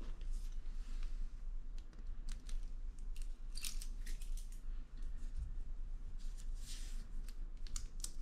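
Light clicks and rustles of a Rolex Explorer II on a black strap being handled and buckled onto a wrist, with the steel buckle and case ticking against each other, over a low steady hum.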